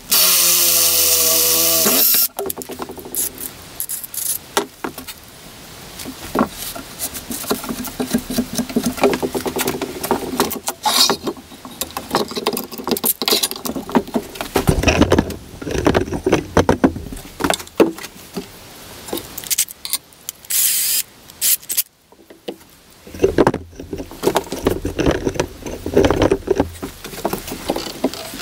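Power drill running for about two seconds with a steady whine as the bit cuts through a steel engine-mount plate, then stopping. After that come irregular clanks, rattles and scrapes as the steel plate and tools are handled and repositioned.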